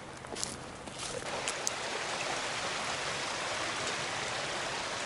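Brook water running in a steady rush that grows louder about a second in. A few footsteps or clicks are heard at first.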